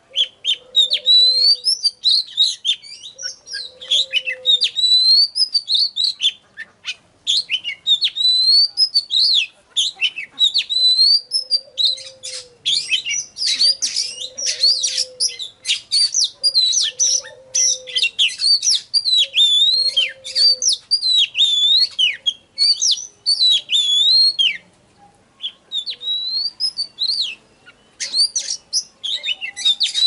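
Oriental magpie-robin singing: a fast, varied string of clear whistles, sweeps and trills, broken by a few short pauses.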